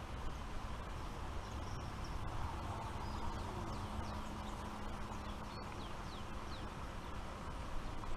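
Outdoor ambience: a steady low rumble and hiss, with faint short bird chirps a few times.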